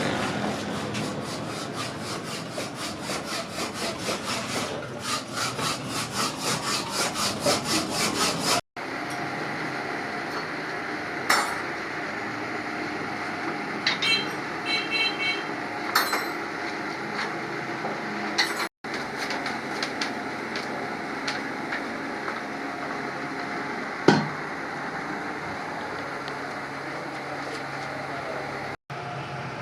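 A hand tool scraping back and forth in quick, rhythmic strokes, about two to three a second, in restoration work on an old engine. This is followed by steadier workshop scraping noise with a few sharp knocks.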